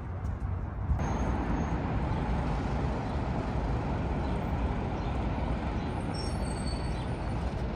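Steady road traffic noise, growing louder all at once about a second in.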